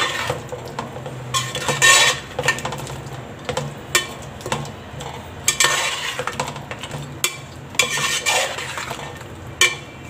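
A flat metal spatula stirring and scraping chicken, potatoes and masala around a large metal cooking pot. It gives a series of rasping scrapes with sharp clinks against the pot's side.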